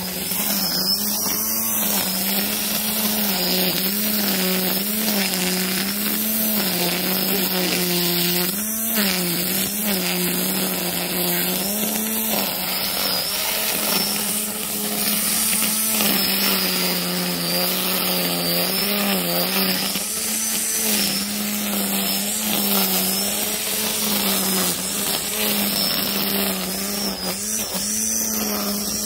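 Wild Badger Power 40V brushed cordless string trimmer running steadily as its line cuts through grass: a motor hum over the hiss of the spinning line. The pitch dips briefly several times as the line meets thicker grass.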